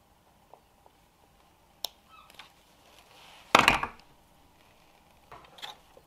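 Hand-held wire strippers clicking and snipping on a thin black cable's insulation, with a sharp click about two seconds in. A short, louder knock and clatter, the loudest sound, comes about three and a half seconds in, and softer knocks follow near the end.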